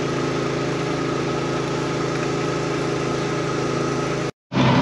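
Tractor engine running at a steady speed on the road. Near the end it cuts to a moment of silence, then a louder engine sound starts.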